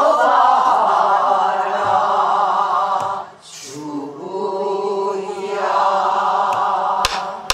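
Pansori singing in two long, steady held notes, with a few strokes of a buk barrel drum.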